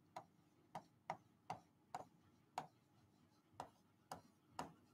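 Faint clicks of a stylus tapping against an interactive display board while words are written, about nine separate ticks at uneven spacing.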